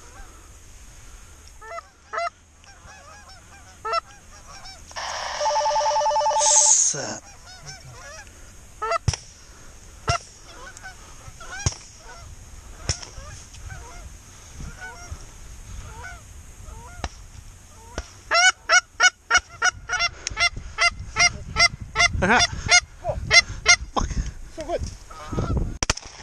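Canada goose honking: scattered single honks, then a fast, regular run of loud honks from about eighteen seconds in. About five seconds in, a steady held tone lasts nearly two seconds and ends in a sharp rising squeal.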